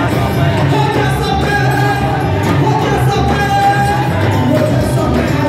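Loud, continuous church praise music with singing voices.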